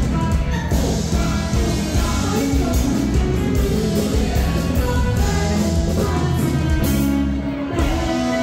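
Amplified live dance music in a rock-and-roll style, with singing over a steady drum beat played through a PA system. The cymbals drop out for a moment near the end.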